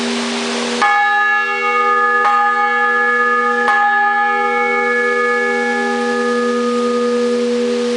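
800 kg blagovest church bell struck by its clapper about a second in, over the low hum still sounding from an earlier strike. Two lighter strokes follow about a second and a half apart, and the bell rings on, its higher tones slowly fading while the deep hum holds.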